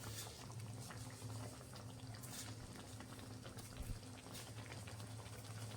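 Capsicum gravy bubbling faintly as it simmers in the pan, over a low steady hum.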